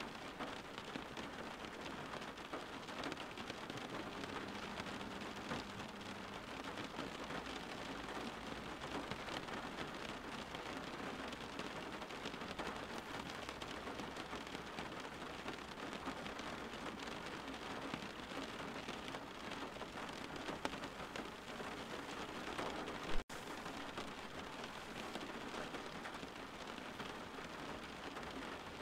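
Steady rain falling, an even hiss of drops throughout. About three-quarters of the way through there is a single sharp click with a momentary drop-out.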